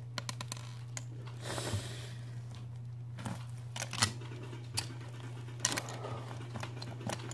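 Slime being handled and squeezed, giving scattered small clicks and pops at irregular times, over a steady low hum.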